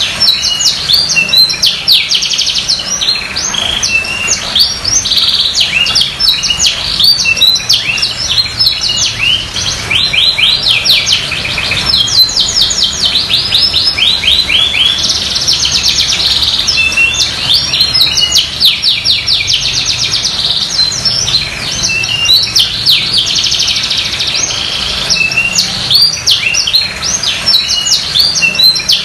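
Domestic canary singing a long, unbroken song of fast trills and rapid runs of repeated notes, with no pauses.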